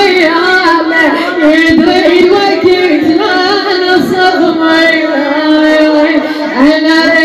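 A woman singing a southern Iraqi lament (na'i) in Arabic, her voice sliding and wavering in pitch in long, nearly unbroken lines.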